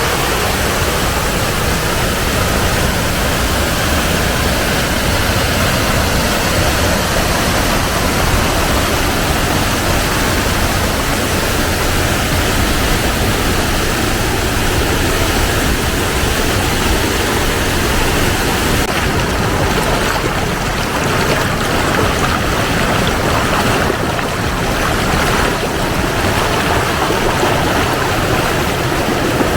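Waterfall on a fast mountain stream, a steady loud rush of falling water; the high hiss eases slightly about two-thirds of the way through.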